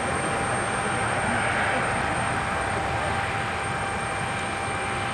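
Airbus A319's IAE V2500 turbofan engines running as the jet rolls along the runway: a steady broad hiss with a faint whine, swelling slightly about a second and a half in.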